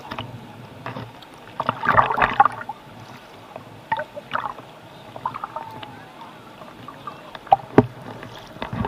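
Shallow seawater splashing and sloshing close to the microphone as people wade and sit in it. The loudest splash comes about two seconds in, and there are two sharp knocks near the end.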